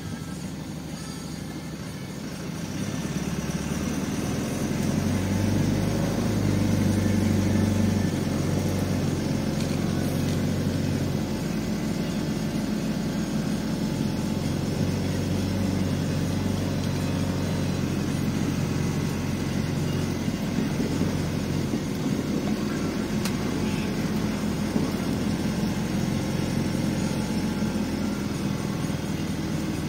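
PAZ-320414-05 Vector bus engine heard from the driver's cab, getting louder as the bus pulls away and accelerates about three seconds in, then running steadily with road noise as the bus drives along.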